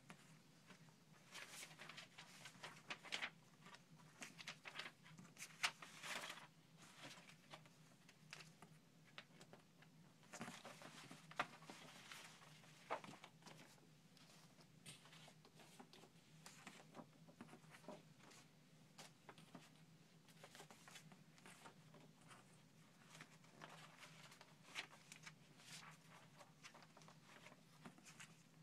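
Faint rustling of paper and soft taps as old magazine clippings, sheets and a folder are handled on a tabletop, in irregular short bursts over a steady low hum.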